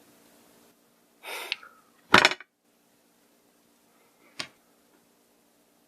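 Tableware handled as a meal begins: a short rustle about a second in, then a loud, sharp clatter of utensils against dishes a little after two seconds, and a single click near the end.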